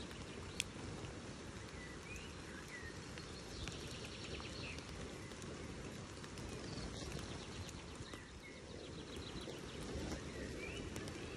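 Outdoor forest ambience: a steady low rush with birds chirping and trilling now and then, and a single sharp click about half a second in.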